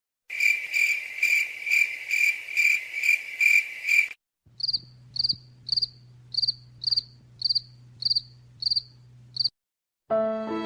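Crickets chirping as a sound effect, in two takes: first a pulsing chirp about twice a second, then after a short break a thinner, higher chirp repeating about twice a second over a low steady hum.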